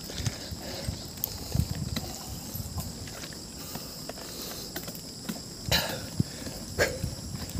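Bicycle ride up a rough mountain road: a string of irregular clicks and knocks from the bike over a steady low rumble, with two short louder rushes near the end.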